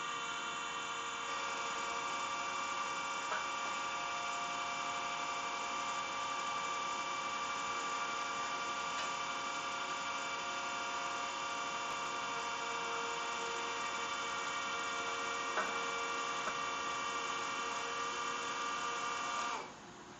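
Hydraulic pump motor of a Crown RC5545-40 36-volt electric forklift running steadily, a whine of many steady tones, as it powers the Cascade roll clamp's rotation. It cuts off near the end.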